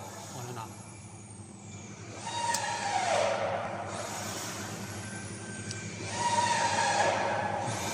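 Laser welding machine at work. Hissing comes in two bursts about four seconds apart, and a high-pitched whine falls in pitch roughly every four seconds.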